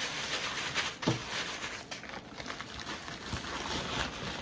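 Plastic packaging wrap crinkling and rustling as it is crumpled in the hands, with a brief knock about a second in.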